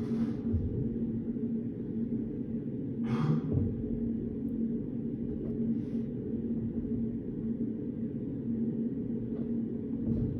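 Steady low hum of a study room's ventilation or air-conditioning with a held tone, and three brief soft rustles, like paper being moved, about a second in, around three seconds and near six seconds.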